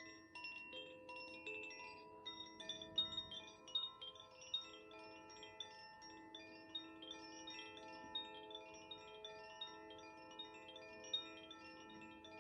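Koshi Aria chime, a bamboo wind chime with tuned metal rods inside, swaying so its central striker taps the rods several times a second. The strikes blur into a quiet, continuous shimmer of overlapping ringing tones.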